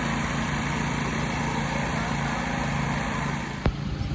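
Steady hum of a running engine or motor, with a single sharp click near the end.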